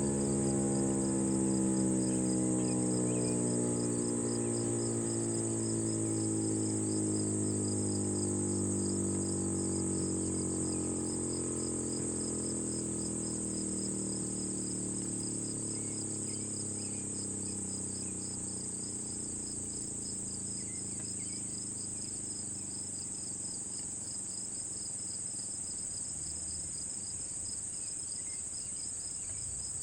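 American Signal T-135 outdoor warning siren winding down after its test, its pitch sliding slowly lower and fading as the rotor coasts to a stop. A steady high drone of insects runs underneath throughout.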